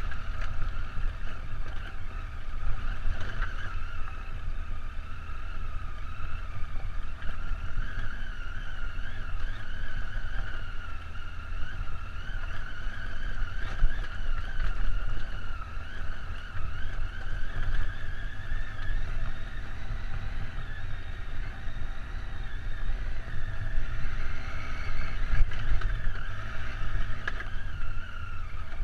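Triumph Tiger adventure motorcycle's engine running at a fairly even pace over a rough, rocky gravel track, with a low rumble from the ride shaking the mounted camera.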